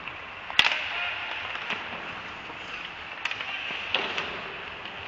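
Ice hockey play echoing in an indoor rink: a sharp crack of stick or puck about half a second in, then a few fainter knocks, over a steady hiss of rink noise.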